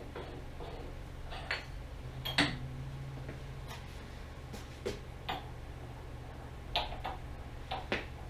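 Scattered sharp metal clicks and clinks of tooling being handled at a metal lathe's headstock during collet and draw-bar setup, the loudest about two and a half seconds in, over a steady low hum.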